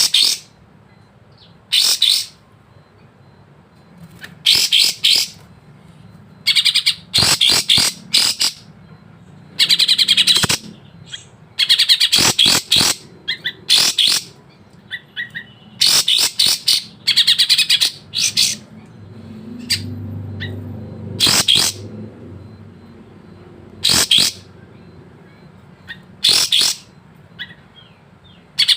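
A kapas tembak bulbul singing: about fifteen short, loud bursts of rapid, sharp, high chattering notes, repeated every second or two with short pauses between.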